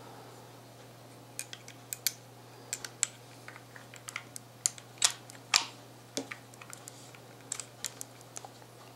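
Irregular sharp metal clicks and taps of a Model 1873 French revolver's cylinder and axis pin being fitted back into the frame by hand, with a few louder clicks about five seconds in.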